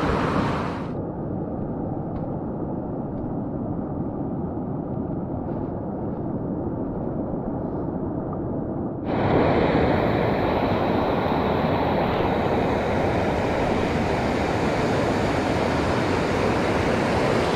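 Steady rushing of a shallow, rocky mountain river's rapids. For most of the first half it is dull and muffled, then it opens out fuller and brighter about nine seconds in.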